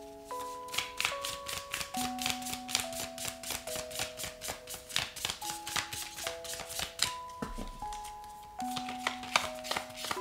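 A deck of tarot cards shuffled by hand: a quick run of crisp card clicks and snaps, briefly thinning out around eight seconds in. Soft background music with long held notes plays underneath.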